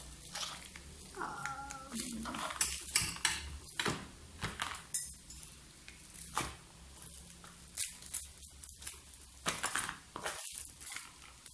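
Packaging and sample packets being handled: rustling and crinkling with scattered small knocks and clicks, one sharper click about five seconds in.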